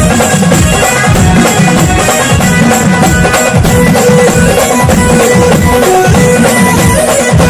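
Loud folk-style devotional music with a dense, steady drumbeat under a held melody line.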